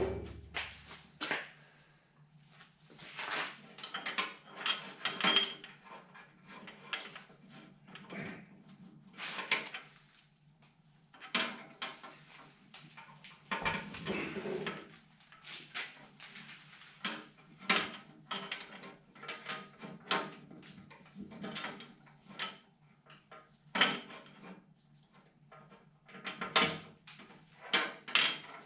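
Irregular metallic clinks, taps and knocks of bolts, nuts and hand tools being worked while the snowblower auger is bolted back onto its shaft, over a low steady hum.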